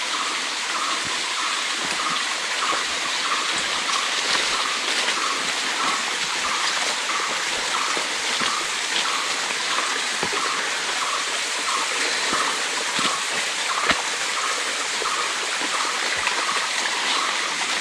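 Dense, steady hiss of jungle insects calling, with a faint chirp that repeats about twice a second. Under it are light crunches of footsteps on dry leaf litter along the trail.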